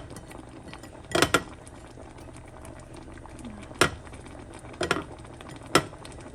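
Bean sauce bubbling steadily in a pot on the stove. A spoon knocks sharply against the pot about five times as the sauce is stirred.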